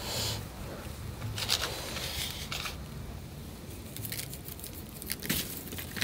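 A plastic squeeze bottle squirting sauce in three short hissing bursts over the first few seconds, then light clicks and crackles of hands handling the food.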